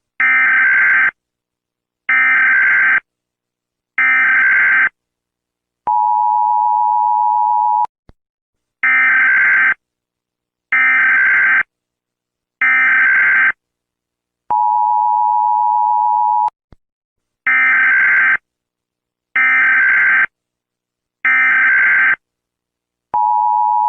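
Emergency Alert System tones: three short, harsh digital data bursts (the SAME header) followed by about two seconds of the steady two-tone attention signal, the whole pattern repeating three times, with the last attention tone still sounding at the end.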